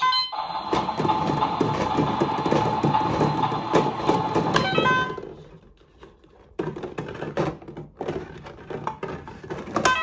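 Toy washing machine giving short electronic beeps at the start, about halfway and near the end. Between the beeps, plastic balls rattle and clatter, loudest in the first half, with a brief lull just after the middle.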